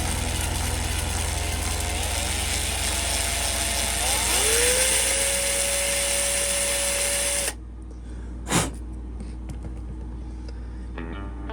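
Small electric drill running with a 3/64 bit, drilling out the hub of a 1/64 scale diecast wheel; its whine rises in pitch and holds, then the drill cuts off suddenly. A single sharp knock follows about a second later.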